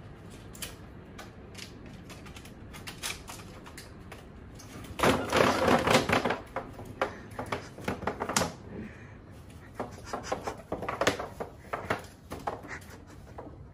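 A large woven bamboo tray falls over onto a tile floor with a loud clatter about five seconds in. It then scrapes and clicks in short irregular bursts as it is shoved across the tiles, with light taps before the fall.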